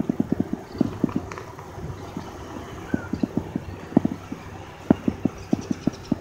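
Irregular sharp clacking knocks, several a second in uneven clusters, over a steady low background.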